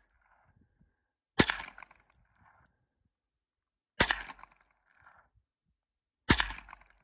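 Smith & Wesson M&P 15-22, a semi-automatic .22 LR rimfire rifle, fired three single shots about two and a half seconds apart, each a sharp crack with a short decaying tail.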